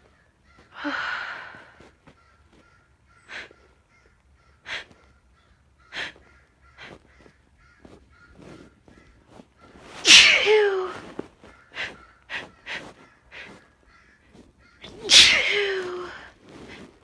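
A woman sneezing twice, loudly, about ten and fifteen seconds in, each sneeze ending in a falling voiced note. A breathy build-up about a second in and short sniffs and catching breaths come between.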